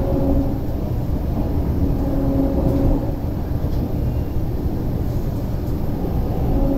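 Cabin noise of an MTR East Rail Line R-train EMU running along the line: a steady low rumble of wheels on track. A level hum swells in and out about three times, near the start, around two to three seconds in, and near the end.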